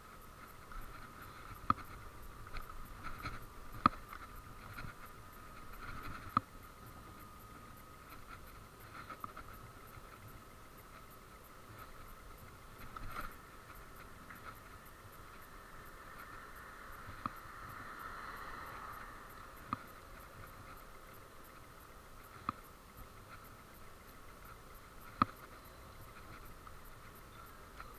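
A small electric stand-up scooter (a Zappy) rides along with a thin, steady motor whine. Sharp clicks and knocks come every few seconds, some loud, over a faint rattle. The sound is picked up by a chest-mounted action camera.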